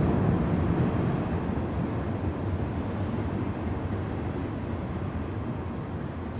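Low rumble of a Union Pacific train moving away, fading steadily as it recedes.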